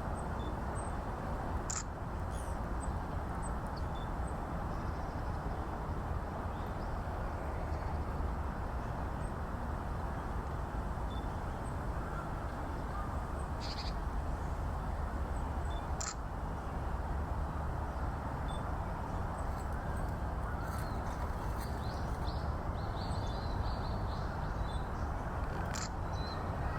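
Outdoor ambience: a steady low rumble with a few short, high bird calls scattered through, a small cluster of chirps near the end.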